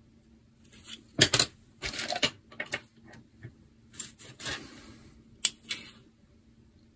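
Small hard clicks and short scrapes of a pencil and a thin rod against a glass laboratory tube, as the rolled paper inside is nudged straight. The clicks come in a scattered series, the loudest a little over a second in.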